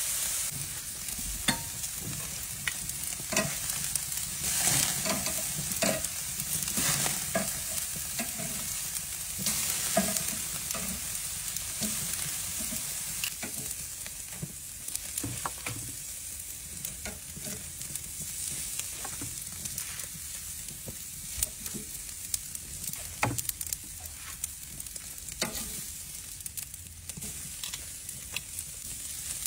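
Strip steaks sizzling on a charcoal grill grate: a steady hiss with scattered pops and crackles, a little busier and louder in the first dozen seconds.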